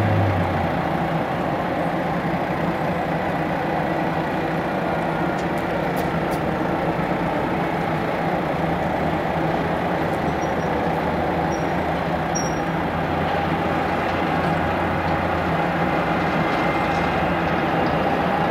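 Distant jet aircraft engine noise: a steady rush with a faint whine, and a low hum that fades in and out.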